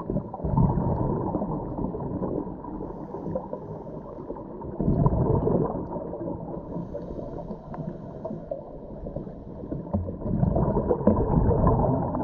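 A scuba diver's exhaled bubbles rushing and gurgling out of the regulator, three breaths about five seconds apart, with a low underwater rumble between them. Muffled through the camera's waterproof housing.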